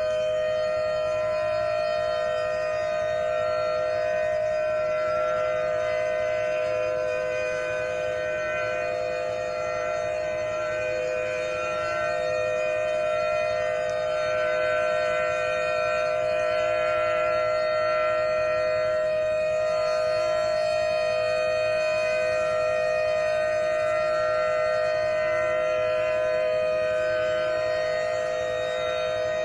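Federal Signal Thunderbeam outdoor warning siren, with an SD-10 siren, sounding a steady alert tone. Its pitch holds level, and its loudness wavers slightly and slowly.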